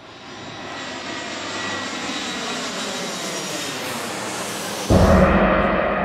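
Airplane flying overhead, its jet noise building and slowly dropping in pitch as it passes. About five seconds in, a sudden deep boom cuts in and fades away.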